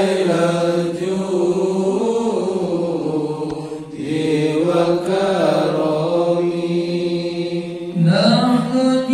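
Men chanting sholawat, Islamic devotional songs praising the Prophet, unaccompanied, in long drawn-out melodic notes. About eight seconds in, a louder voice comes in at a higher pitch.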